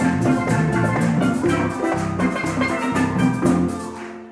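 Live church praise band playing an upbeat instrumental passage, a steady drum beat over a moving bass line and chords. The band stops near the end, leaving one held note.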